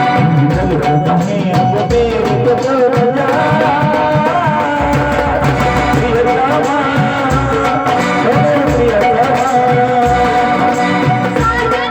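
Marathi jagaran gondhal devotional folk music: singing with a wavering, ornamented melody over steady hand-drum strokes and a band accompaniment.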